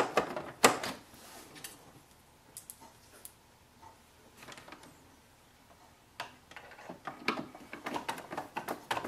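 Screwdriver turning small screws into the plastic casing of an Epson ET-2720 printer: a few scattered clicks and ticks, a quieter stretch in the middle, then a quick run of small clicks over the last three seconds as the screw on the other side is driven in.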